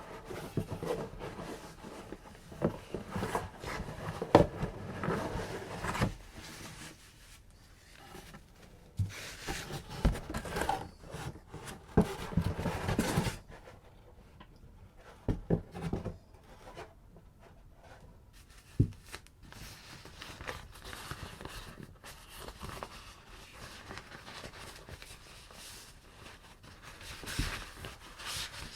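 Camera packaging being handled during unboxing: irregular rustling and rubbing with scattered small knocks and clicks. Busy spells come in the first six seconds, around ten to thirteen seconds and near the end, with quieter handling between.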